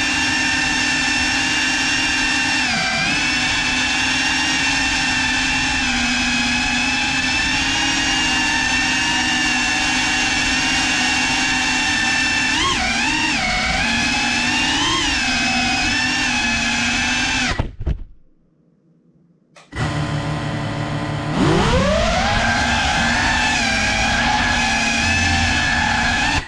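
FPV quadcopter's electric motors running with a steady whine after a crash, the pitch wavering a couple of times. About 18 seconds in the motors cut off suddenly, and two seconds later they spin up again with a rising whine and hold steady.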